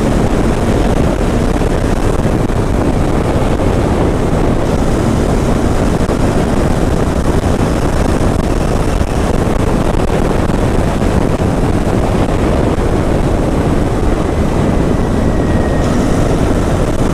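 Royal Enfield Interceptor 650's parallel-twin engine running as the motorcycle is ridden at road speed, mixed with steady wind rush on the microphone.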